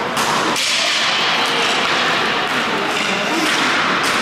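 Hockey game sound in a rink: a steady noisy hiss with a few sharp knocks, and voices underneath.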